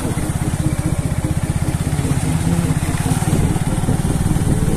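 Motorcycle engine running steadily under way, its rapid, even firing pulse close to the microphone.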